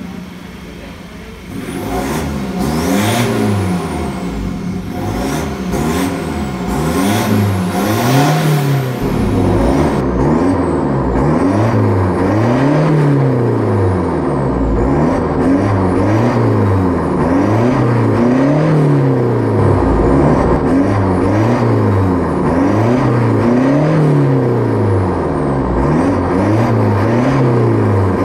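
Ford Ranger Raptor's 2.0-litre twin-turbo diesel four-cylinder, breathing through a full turboback aftermarket exhaust, being revved over and over in the garage: the note climbs and falls back about every two seconds, with the tachometer swinging to around 3000 rpm.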